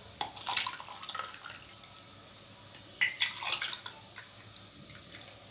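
Rose milk sarbath with ice being poured back and forth between a glass and a plastic mug to mix it. There are two bursts of splashing and ice cubes clinking, each about a second long: the first just after the start, the second about three seconds in.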